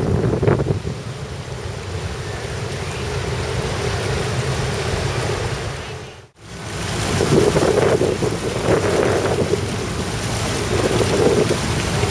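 Wind buffeting the microphone over rushing water from a boat under way. The sound cuts out for a moment about six seconds in, then comes back a little louder with a few swells.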